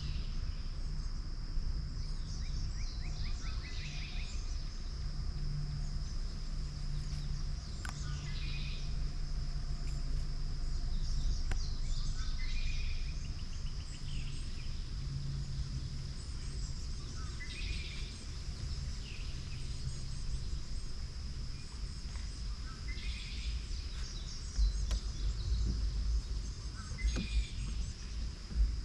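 Steady high-pitched insect drone with a bird repeating a short falling call about every four to five seconds, over a low rumble. A few louder low bumps come near the end.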